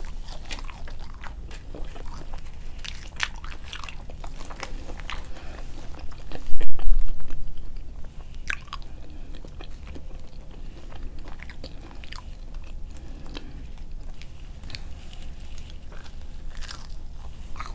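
Close-up chewing and crunching of fast food, with many small crisp clicks from bites and mouth sounds. A much louder dull thump comes about six and a half seconds in.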